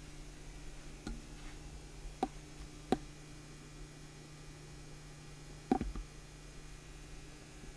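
Steady low hum with a few scattered light knocks and clicks, the loudest a sharp knock about three seconds in and a double knock near six seconds.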